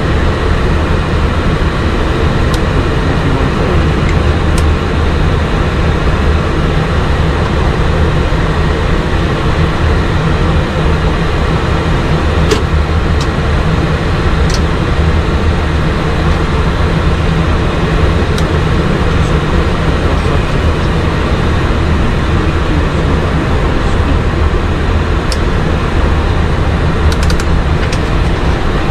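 Steady hum and rush on the flight deck of a Boeing 737 MAX 8 with its engines running on the ground, holding an even level without spooling up. A few light clicks are heard here and there.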